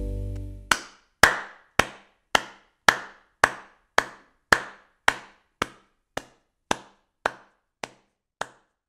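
Music fading out in the first second. Then a steady series of about fifteen sharp knocks, a little under two a second, each with a short ringing tail, slowly growing fainter: a percussive logo sound effect.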